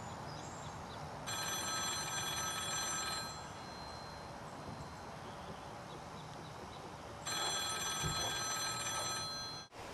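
TELUS payphone ringing twice, each ring about two seconds long with about four seconds of silence between them, the usual North American ring cadence.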